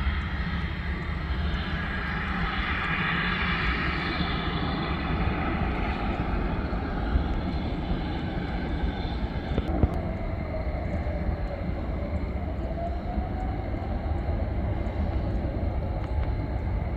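Jet airliner engines running: a steady low rumble with a whine that swells in the first few seconds and then fades, followed by a tone that slowly dips and rises in pitch.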